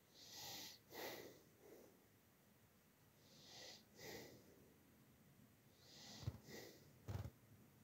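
Faint breathing close to a microphone, a breath about every two and a half seconds, each a hiss followed by a lower rush of air. Two soft knocks near the end.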